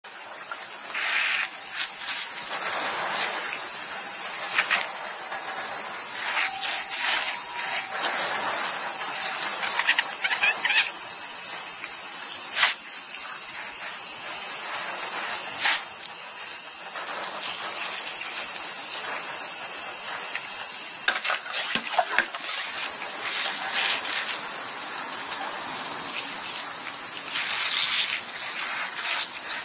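A steady, high-pitched chorus of insects runs throughout. Under it, water from a battery portable shower hisses and patters on a tanuki's fur now and then, with a few sharp clicks along the way.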